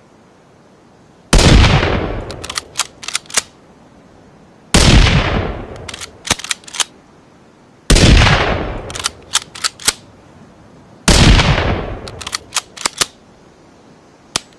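Rifle-shot sound effect blending a Ruger American rifle with a rimfire rifle: four loud shots about three seconds apart, each with a fading tail and then a quick run of four or five sharp clicks. A single click comes near the end.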